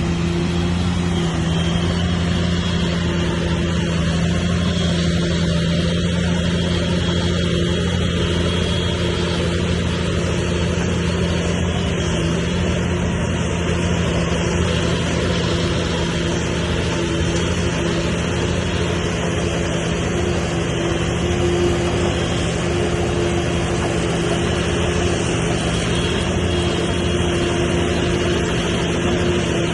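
Heavy earthmoving machine's diesel engine running steadily, its pitch holding level throughout with a low rumble beneath.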